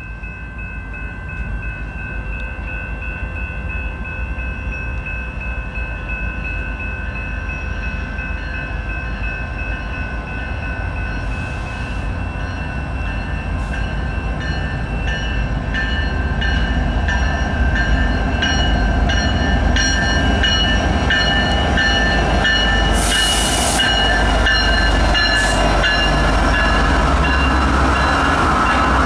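A Canadian National diesel freight train approaching, its locomotive rumble growing steadily louder. From about halfway, its wheels click in a regular rhythm over the rail joints. Steady high tones sound throughout, and there is a brief sharp hiss late on.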